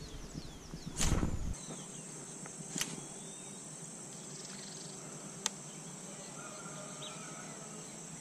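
Steady high-pitched insect drone, starting abruptly about a second and a half in, with a few faint bird chirps and two sharp clicks over it. Just before it comes a loud, brief rustling burst.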